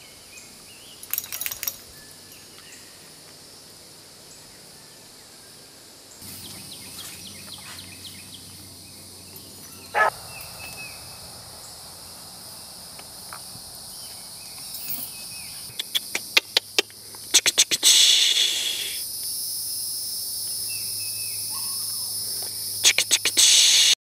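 Steady high insect buzzing, which sets in about six seconds in and swells for a while later on, with several bursts of sharp metallic clinks and rattles from a dog's chain as she runs about on it. The rattling is loudest in clusters about two-thirds of the way through and near the end.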